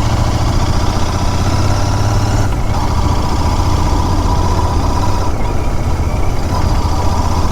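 Royal Enfield Continental GT 650's 648 cc parallel-twin engine running steadily under way, heard through its exhaust with road and wind noise, with two brief dips.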